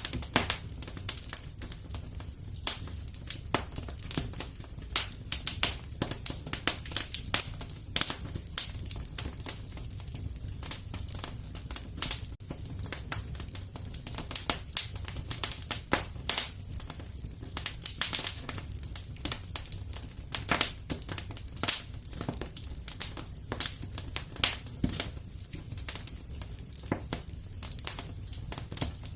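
Fireplace crackling: a steady run of irregular sharp pops and snaps from burning wood, over a low rumble of the fire.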